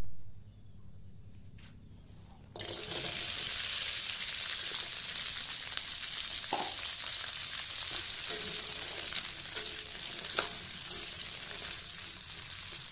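Whole shallots, garlic, chilies and tomatoes frying in hot oil in a wok: the sizzling starts suddenly about two and a half seconds in and runs on steadily, with a few knocks of a metal spatula stirring against the wok.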